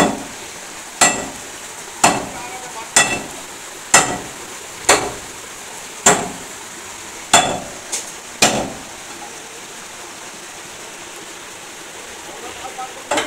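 Hammer blows on the steel arm of a JCB 424B HD backhoe loader, about one a second with a metallic ring, about ten in all, stopping about eight and a half seconds in. The arm is being knocked apart for recovery. A steady hiss of rain runs underneath.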